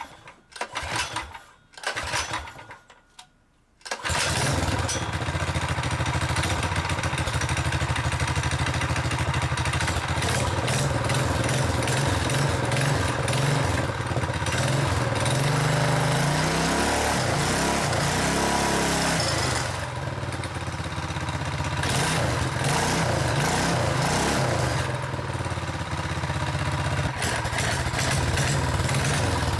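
Mini motorcycle's small single-cylinder four-stroke engine, fitted with a performance kit, open air filter and small exhaust silencer. It gives a few short bursts, catches about four seconds in and then runs steadily. Partway through the revs rise and fall once.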